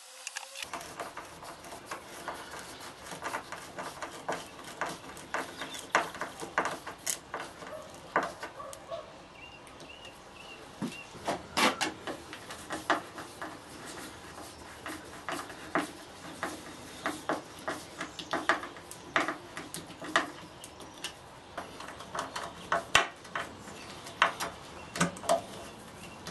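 Irregular clicks and knocks of hand tools on wood as a thin scrap-wood log holder is screwed and glued together by hand, without a power drill.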